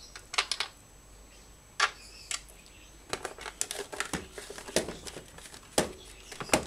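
Plastic body of an EUROE electric grass trimmer being handled and turned over on a workbench: scattered clicks and knocks of hard plastic, the sharpest about two seconds in and near the end.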